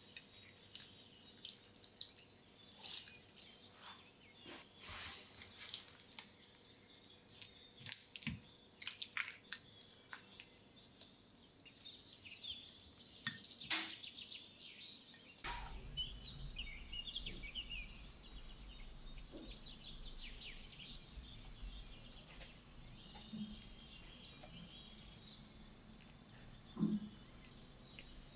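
Spatula stirring thick cream cheese frosting in a ceramic dish: a run of soft wet squishes and clicks. About halfway through the sound changes to quieter scraping over a low hum as the frosting is spread with a metal offset spatula.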